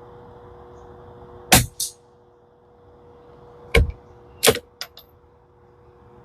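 A Tikka T1x .22 LR bolt-action rifle firing a sighter shot and having its bolt cycled: three loud sharp cracks or clacks and a few lighter metallic clicks, over the steady hum of an electric fan.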